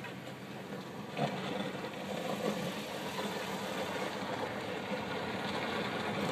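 A car's engine running and its tyres on the road, heard from inside the cabin, slowly getting louder. A single knock about a second in.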